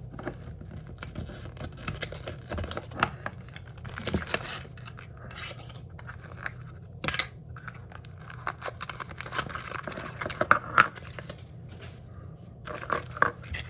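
Small collectible toy boxes and their packaging being handled and opened: scratching and tearing with scattered sharp clicks.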